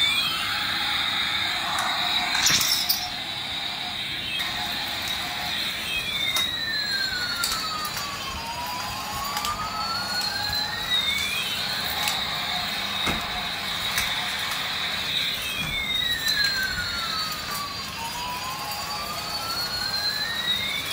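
Electronic sound effects from a battery-powered light-up toy: a steady high whistling tone with two slow siren-like sweeps, one pitch gliding down while another glides up and back, and scattered small clicks.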